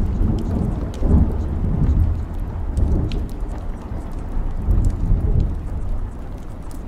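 Thunderstorm sound: steady rain with deep rolling thunder that swells and eases several times, and scattered sharp drop ticks over it.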